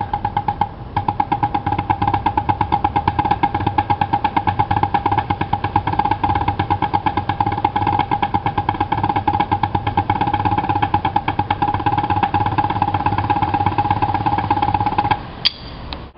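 Two marching snare drums played together: a fast, dense stream of stick strokes and rolls with a high, ringing drum pitch. There is a brief break about a second in, and the playing stops near the end.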